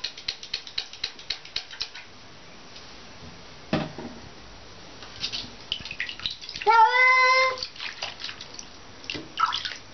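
A black-and-white house cat meows once in a bathtub, one long drawn-out meow about two-thirds of the way in. Before it come a quick run of light taps and clicks and a single knock near the middle.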